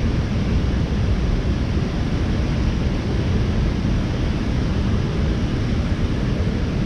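Steady rumbling wind buffeting the microphone, mixed with the rush of flowing creek water.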